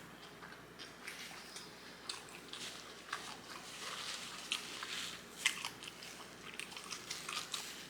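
Close-miked chewing of a lettuce-wrapped burger: wet crunching and mouth smacking, with many small irregular clicks.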